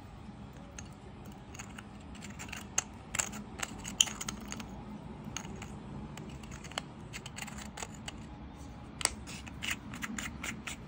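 Scattered small clicks and taps from a metal flashlight being handled as its end cap is twisted back on. The loudest click comes about four seconds in.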